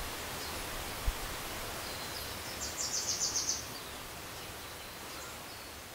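Steady outdoor nature ambience, an even hiss, with a short rapid high-pitched trill of chirps about two and a half seconds in, fading toward the end.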